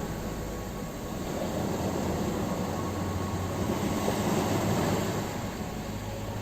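Ocean surf washing onto a shore: a steady rumbling rush of breaking waves that swells from about a second in, peaks near the five-second mark, and then eases off.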